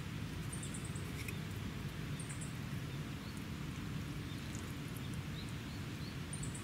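Steady rain falling on the tent, with a few faint, short high chirps.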